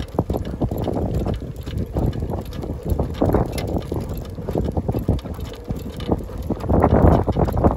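Wind buffeting the microphone over the rumble of a sacco dog cart's wheels rolling on an asphalt path, with frequent light clicks and knocks.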